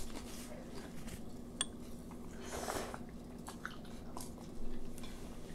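Quiet eating sounds of ramen noodles: chewing and slurping, with a few light clicks, over a faint steady hum.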